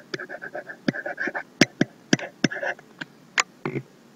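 Stylus writing on a tablet: a quick run of sharp taps and clicks with a light scratchy rasp as letters and numbers are drawn. It stops shortly before the end.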